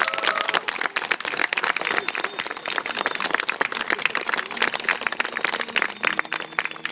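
Audience applauding: many hands clapping densely and irregularly.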